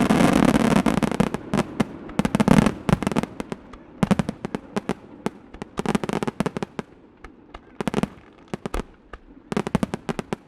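Fireworks going off: a dense, loud volley right at the start, then rapid, irregular bangs and cracks that thin out, with another cluster of reports near the end.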